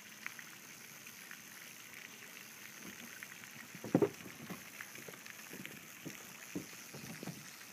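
Faint water sloshing and a few light knocks around a canoe, the loudest about four seconds in.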